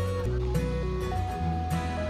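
Background music: a melody of held notes stepping every quarter to half second over a steady bass line, with light percussion.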